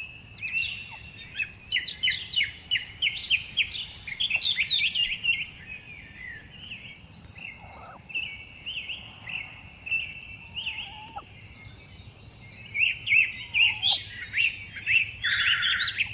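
Small birds chirping, quick runs of high rising-and-falling notes coming in bursts with pauses between, the busiest near the start and again near the end.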